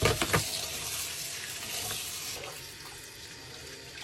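Kitchen tap running into the sink, rinsing sand off cleaned shellfish. The flow gets quieter a little over halfway through.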